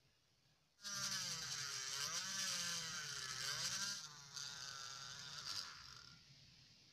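Small handheld electric mini drill boring through a small PVC part, its motor whine wavering in pitch as the bit bites into the plastic. It starts about a second in, drops in level near four seconds and fades out a couple of seconds later.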